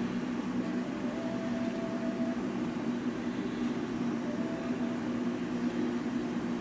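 Steady low mechanical hum with a few steady tones, and a faint higher tone that comes and goes a couple of times.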